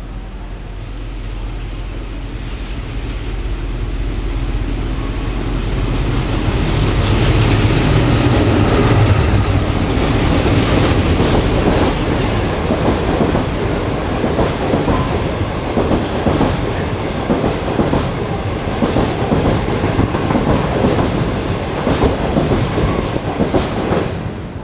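A locomotive-hauled intercity passenger train passing through a station without stopping. It grows louder over the first several seconds as it approaches, then its coaches rush past with a long run of rapid clickety-clack from the wheels over the rail joints. The sound drops off at the very end as the last coach passes.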